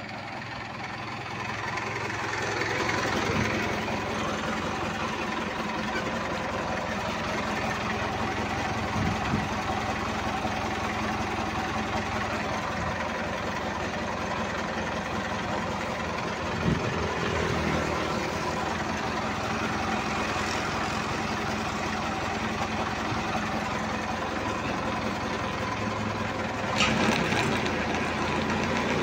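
Forklift engine running steadily, with a couple of short metal clanks, one about two-thirds of the way through and one near the end.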